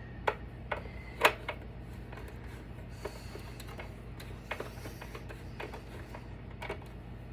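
Scattered clicks and knocks of the plastic casing and parts of an APC battery backup being handled and pried apart, the sharpest knock about a second in.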